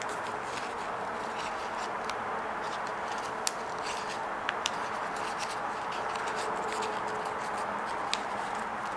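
Sheet of paper being handled and creased by hand, with a few sharp ticks from the paper, over a steady background hiss.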